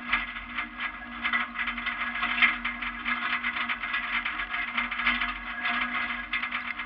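12-valve diesel bus driving on a dirt road: a steady engine drone under a continuous crackle and rattle of tyres, dirt and wind.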